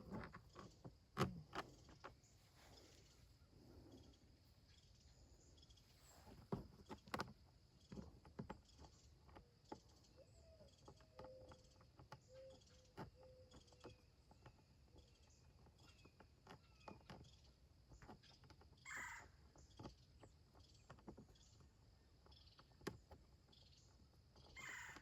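Mostly quiet, with scattered light clicks and knocks of bolts and panels being handled during compost tumbler assembly. Faint bird calls sound in the background, with two short calls, one about two-thirds through and one near the end.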